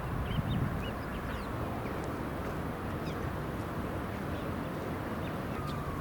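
Birds chirping in short calls over a steady hum of distant city traffic; near the end a single falling tone begins, the start of a siren.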